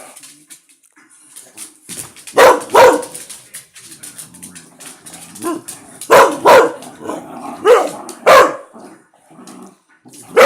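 A dog barking excitedly, about seven sharp barks from about two seconds in, several in quick pairs, at dogs play-fighting; the owner takes it for the onlooking dog cheering them on.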